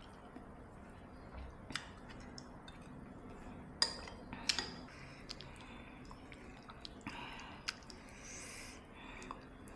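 A spoon clinks against a soup bowl several times, loudest about four seconds in, with soft chewing and wet eating sounds of soto ayam between. Near the end come two short breathy sounds.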